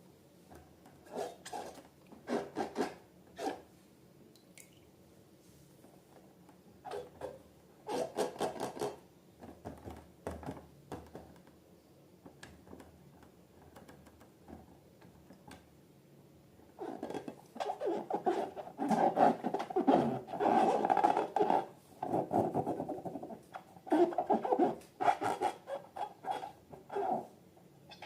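Slime being squished and worked by hand, with sticky crackling sounds. It comes in short separate bursts at first, then runs almost without a break through the second half.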